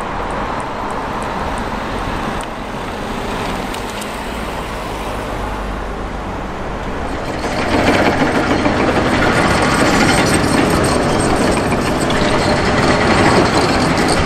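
Construction-site noise of engines from road-building machinery and vehicles, with a steady engine hum and scattered knocks. It gets louder about eight seconds in.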